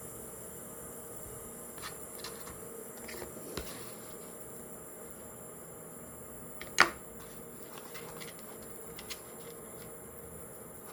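Faint hand-handling sounds of minced chicken being packed around a butter cube: a few soft taps and clicks, with one sharper click about seven seconds in, over a steady electrical hum.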